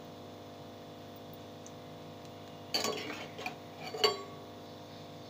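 A metal utensil clinking and scraping against a cooking pan: a short cluster of clinks and scrapes around the middle and one sharp clink about four seconds in, over a steady low hum.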